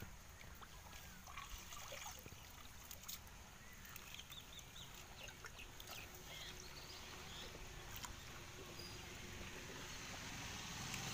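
Faint splashing of a fish thrashing in a gill net and the net being handled in shallow water, with small scattered clicks, while birds chirp briefly in the middle.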